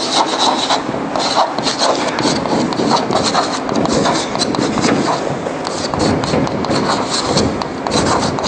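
Chalk tapping and scratching on a blackboard as a line of words is written: runs of quick sharp clicks and short scrapes.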